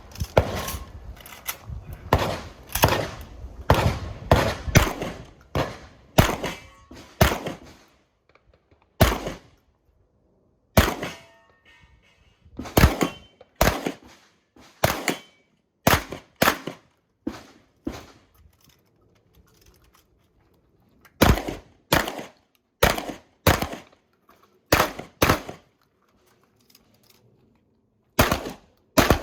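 Beretta 1301 Comp Pro semi-automatic 12-gauge shotgun firing a course of fire. A fast string of shots comes in the first eight seconds, then single shots about a second apart, another quick string a little past the middle, and two more shots near the end.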